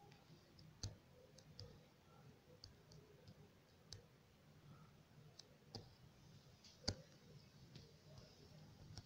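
Near silence broken by about ten faint, irregular clicks and taps, the sharpest about seven seconds in: fingers tapping and handling a tablet screen while zooming a page.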